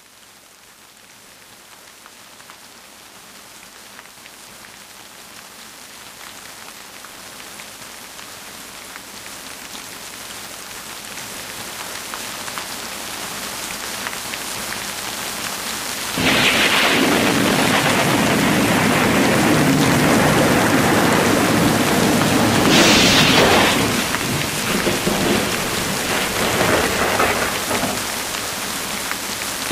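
Rain and thunder sound effect from a desktop rain-and-thunder program. Rain fades in gradually, then a sudden loud thunderclap comes a little past halfway with heavier rain, and another thunder crack follows about three-quarters of the way through.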